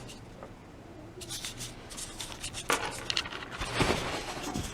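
Soft scratching and rustling, sparse at first and busier from about a second in, with the loudest rustle near the end.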